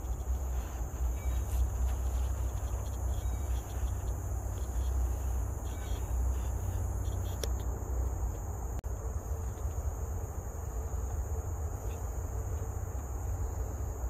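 Steady high-pitched chorus of tropical forest insects, one continuous shrill drone with no breaks, over a low rumble.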